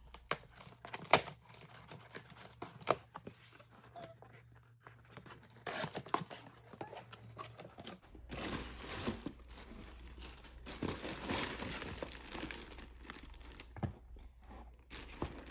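A shipping package being opened by hand: a few sharp clicks and knocks at first, then long stretches of tearing and crinkling packaging.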